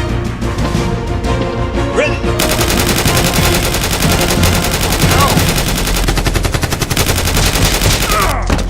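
Rapid automatic gunfire, a fast even stream of shots over action music, starting a couple of seconds in and stopping shortly before the end.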